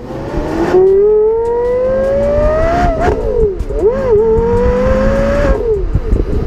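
Porsche Carrera GT's 5.7-litre V10 accelerating hard: the engine note climbs steadily in pitch, drops at an upshift about three seconds in, climbs again, then falls away as the driver lifts off near the end.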